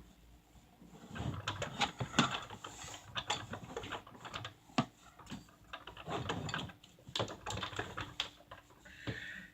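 A run of quick, irregular clicks and rustles in clusters, with a short higher tone near the end.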